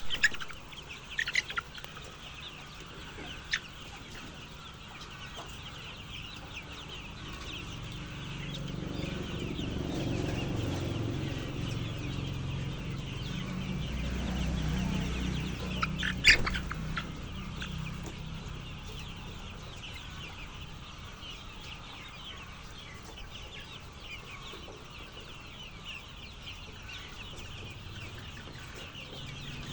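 A flock of chickens clucking and chirping continuously, many birds at once, with a few sharper, louder calls near the start and about halfway through. A low rumble swells underneath through the middle.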